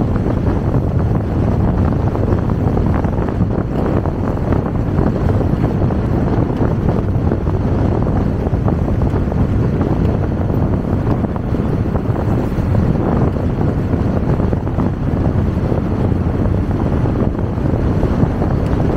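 Steady rush of wind buffeting the microphone on a moving motorcycle, mixed with the motorcycle's road and running noise.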